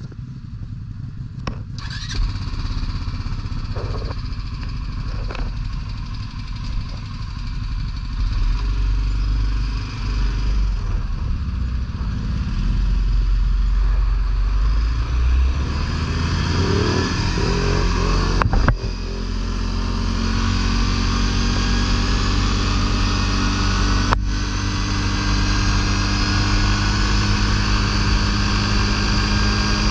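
ATV engine running under way, with a heavy low rumble. In the last third its note climbs steadily as it accelerates.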